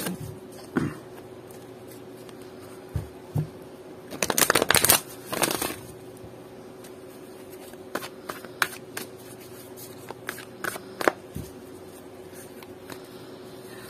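Oracle card deck being shuffled by hand: a dense run of rapid card clicks about four to six seconds in, then scattered single clicks and taps as the cards are squared and cut.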